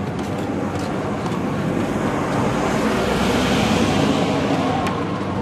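Road traffic noise from the street, with a car passing close by and swelling to its loudest about three to four seconds in before fading.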